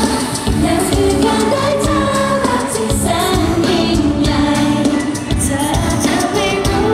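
Live pop song: a group of women singing into microphones over a live band with drums and electric guitars, amplified through a concert PA, with a steady drum beat.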